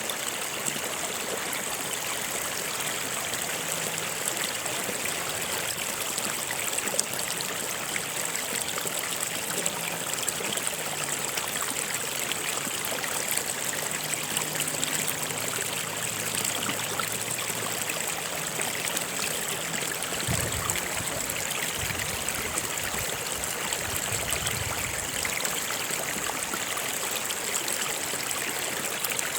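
A stream of water running steadily: an even, unbroken rushing.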